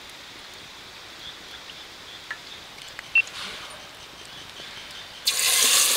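Cooking oil starts sizzling in a hot pan for frying pakoras: a loud, steady hiss that begins suddenly near the end. Before it there is only quiet background with a few small clicks and one sharp knock about three seconds in.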